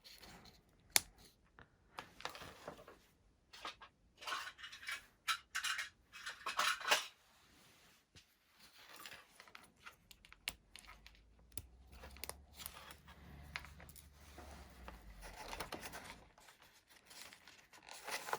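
Handling noises: scattered light clicks, scrapes and rustles as servo wires and connectors are handled.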